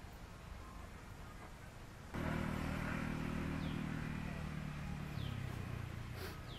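A motor vehicle engine running steadily, starting suddenly about two seconds in, its pitch dropping slightly around five seconds. A few short high falling chirps over it.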